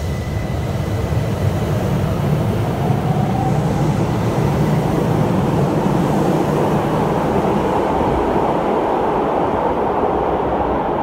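Keihan 800 series train, with TOYO IGBT VVVF inverter, pulling out of an underground station. A steady, loud rumble of wheels and running gear builds over the first couple of seconds and then holds as the train runs into the tunnel.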